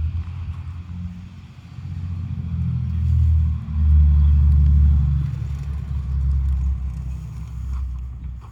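Wind buffeting the microphone: a low, uneven rumble that swells and fades, loudest about three to five seconds in.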